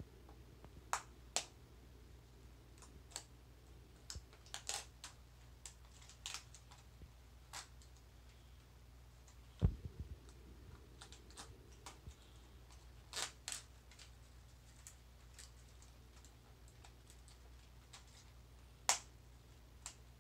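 Scattered light clicks and taps of small plastic toy pieces being handled and opened, with one heavier thump about ten seconds in.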